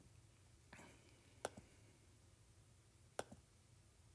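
Two sharp taps on a tablet's glass screen, about a second and a half in and again near three seconds, each with a faint second tick just after, against near silence.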